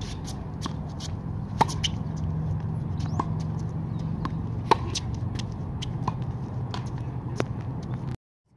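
Tennis ball struck back and forth by racquets in a groundstroke rally: a sharp pock about every one and a half seconds, some hits louder than others, over a steady low rumble of background noise. The sound drops out just before the end.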